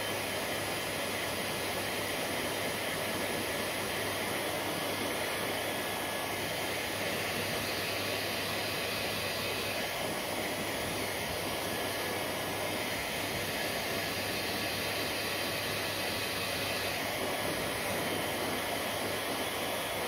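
Hair dryer running steadily, a constant rush of blown air with a faint motor hum underneath.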